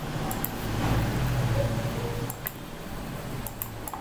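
Steady low hum and hiss of background room noise picked up by the microphone, with a few light mouse clicks.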